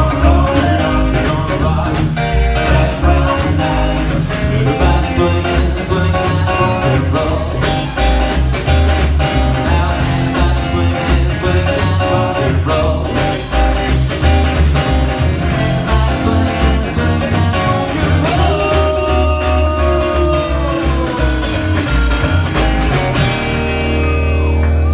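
Live band playing with upright double bass, hollow-body electric guitar and a sung lead vocal, ending on a held chord near the end.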